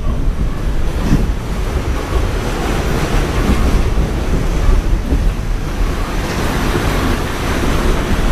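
Interior running noise of an R46 subway car in motion: a loud, steady low rumble of wheels on rail with a rushing noise over it.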